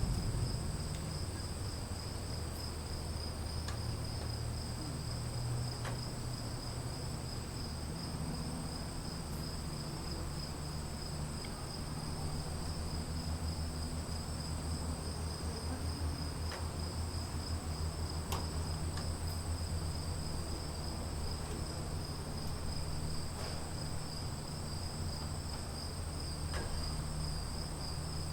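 Crickets trilling steadily in a chorus at two high pitches, over a continuous low rumble, with a few faint scattered ticks.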